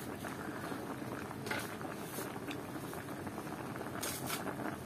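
Pot of palo broth with chicken feet boiling: a steady bubbling, with a few brief pops and crackles from bursting bubbles.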